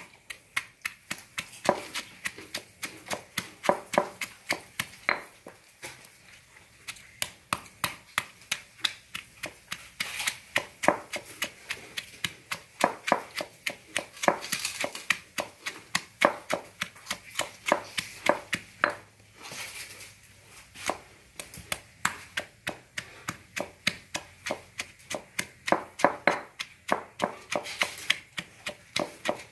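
Stone pestle pounding red chillies and shallots in a stone mortar: a steady run of strikes, about three a second, with a couple of short pauses.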